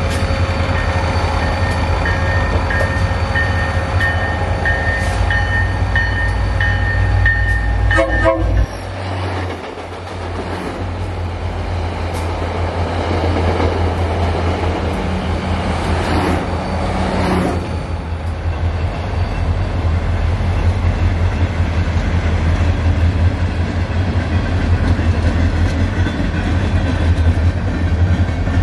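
Diesel locomotives of a work train rumbling, with a commuter train rolling by on the next track. A short train horn blast sounds a little past halfway.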